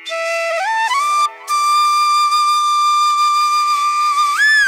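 Background music: a solo flute melody that climbs through a few notes, breaks off briefly about a second in, then holds one long note that bends up near the end.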